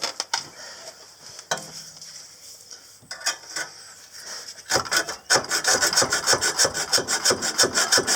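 Light metallic clicks and taps as a hand-held cutting tool is set on a seized exhaust bolt. About two-thirds of the way in, fast, regular rasping strokes begin as it cuts into the bolt.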